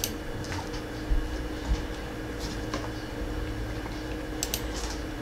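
Quiet steady electrical hum with a few light clicks and two soft low thumps in the first two seconds.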